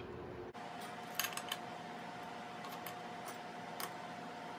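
A few faint metallic clicks of a hex key turning socket-head screws into the cast-iron column mount, over a steady hum.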